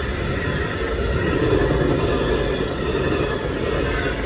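Amtrak passenger cars rolling past at speed, a steady rumble of wheels on the rails.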